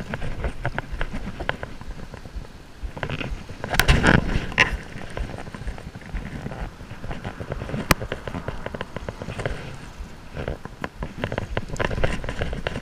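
Water splashing and dripping as a hooked fluke (summer flounder) is handled at the surface, with a steady patter of small splashes. There is a louder burst of splashing about four seconds in and a single sharp click near eight seconds.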